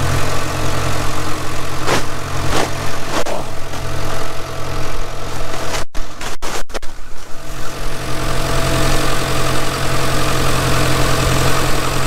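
Engine idling steadily with an even low drone. A few sharp clicks come about two to three seconds in, and the sound cuts out briefly three or four times around six seconds in.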